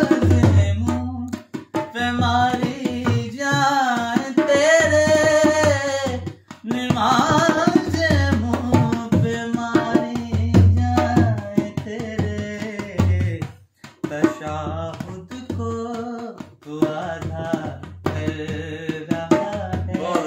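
A man singing a qasida, a devotional poem, in long melodic phrases whose pitch bends up and down, over a drum accompaniment of repeated low strokes. The singing breaks off briefly past the middle, then goes on.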